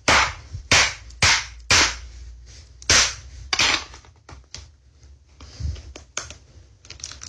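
A series of sharp smacks on a wooden floor, about six loud ones in the first four seconds, then fainter knocks and clicks.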